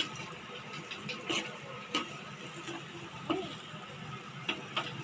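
A spoon scraping and knocking against a metal frying pan as grated coconut is stirred in it: about five separate short scrapes and taps over a steady low hiss.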